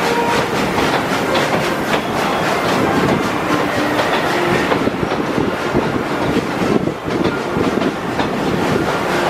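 Amusement-park train's passenger cars rolling along the track, the wheels clacking steadily over the rail joints.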